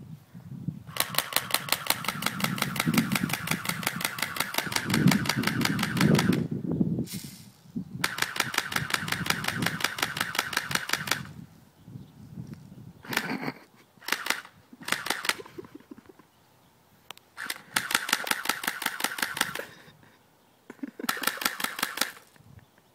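Orange-tipped toy rifle firing in full-auto bursts of rapid, even clicking: one long burst of about five seconds, then several shorter bursts with pauses between.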